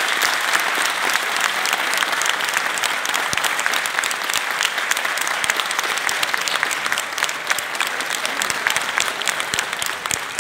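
Theatre audience applauding: dense, sustained clapping that thins and grows quieter near the end.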